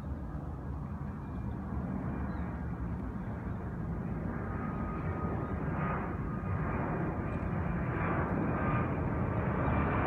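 Jet airliner passing overhead: a steady low rumble that grows gradually louder, with a faint engine whine coming in about halfway through.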